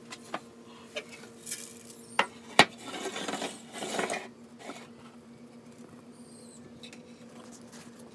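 A steady low hum with a few sharp clicks and knocks; the loudest knock comes a little over two and a half seconds in. About a second of rustling follows.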